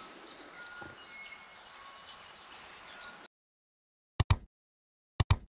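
Faint outdoor ambience with a few short whistled bird notes from a bird whose call is heard as 'sol-si-mi'. This stops abruptly about three seconds in. About a second later come two pairs of sharp clicks, a second apart, which are the loudest sounds.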